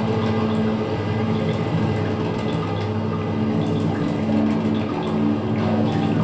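Experimental electroacoustic music: processed electric guitar and synthesizers holding a dense, steady drone of several sustained low tones under a washy, water-like noise texture.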